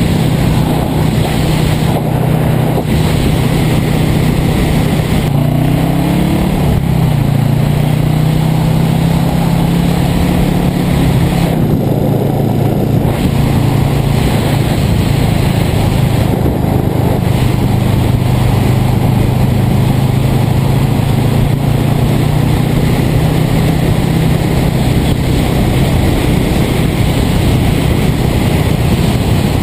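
A 1978 Yamaha XS400's air-cooled parallel-twin engine running steadily under way, with wind rushing past the microphone. The engine note glides up and settles again about six seconds in.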